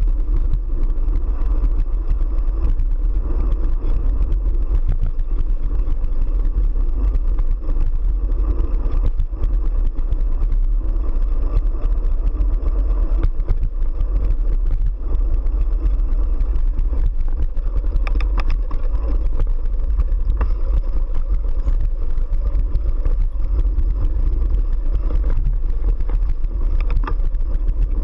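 Mountain bike riding a dirt track, heard through a handlebar-mounted GoPro: a steady loud rumble of tyres over packed dirt and vibration through the mount, with small rattles and clicks from the bike over bumps.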